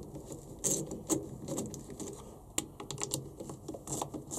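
Light, irregular clicks and taps of a metal 8 mm hex socket tool being seated on a cap bolt of a Honda B18C4 distributor, with the distributor being handled on the bench.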